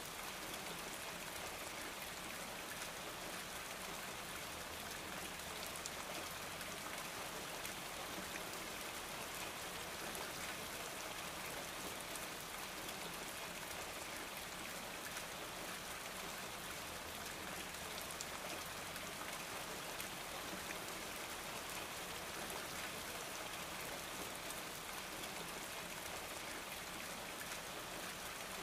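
Steady rain-like hiss, even throughout, with a faint scattered patter of tiny ticks.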